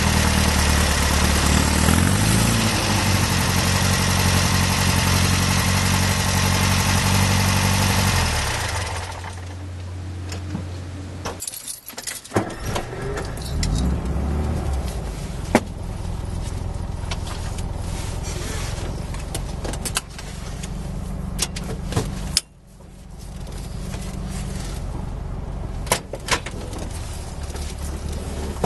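VW T2 camper's air-cooled flat-four engine running through a JK stainless single quiet pack exhaust, heard loud from the outside bumper with road and wind noise while driving. After about nine seconds it changes to the quieter engine sound inside the cab, with small rattles and clicks from the cabin. The sound dips sharply about three-quarters through and comes back.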